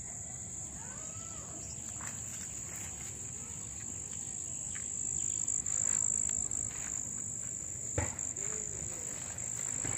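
Steady high-pitched insect drone that grows louder about halfway through, with a single sharp knock near the end.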